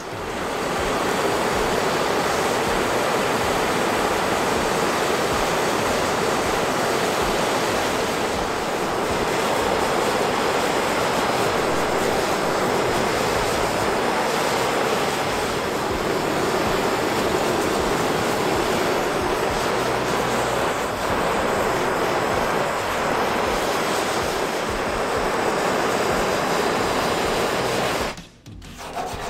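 Gas torch flame hissing steadily as it heats the rusty steel of a car's rear quarter panel; the hiss stops suddenly near the end.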